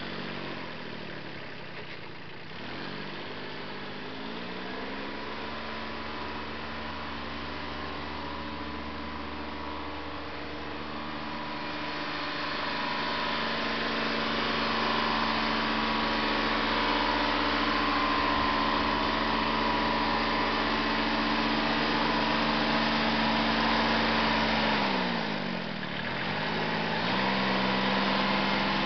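Small loader tractor's engine running steadily. Its pitch drops and picks back up about two seconds in and again near the end, and it grows louder in the middle as the tractor comes closer.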